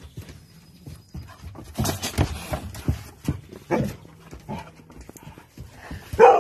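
Small dog panting and huffing in quick, irregular puffs, with one short, loud bark near the end.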